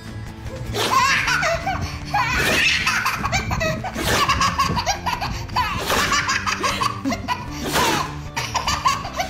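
Baby laughing in repeated belly laughs, over background music.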